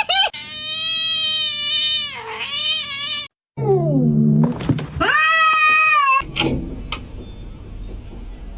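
Domestic cat meowing in long, drawn-out yowls: one lasting about two seconds, then, after a short silent gap, a falling call and a second long yowl. It goes quiet after about six seconds.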